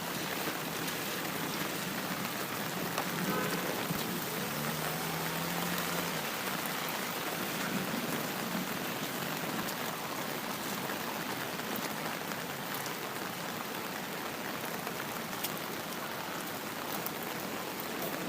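Steady rain falling: an even hiss with scattered sharper drop hits.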